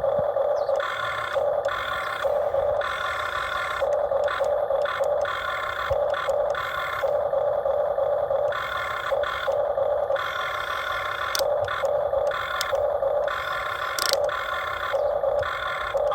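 Electric motors of a Huina RC model excavator whining in repeated short spells, starting and stopping as the controls are worked, with a few sharp clicks.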